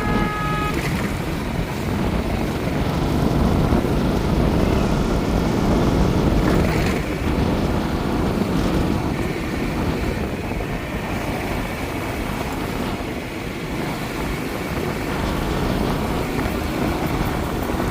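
A vehicle running steadily in motion, with wind rushing on the microphone. A short pitched tone cuts off just under a second in.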